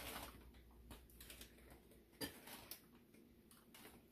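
Near silence with faint, scattered clicks and crinkles of hands picking shredded chicken out of a plastic bag and laying it on a pizza crust over parchment paper.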